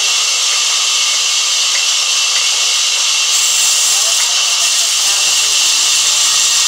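Sawmill band saw ripping a long wooden slab as it is pushed through the blade: a loud, steady, high hiss.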